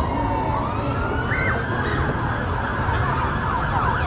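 Emergency vehicle siren wailing, its pitch sliding slowly down and back up, then switching to a fast warbling yelp near the end, over steady background noise.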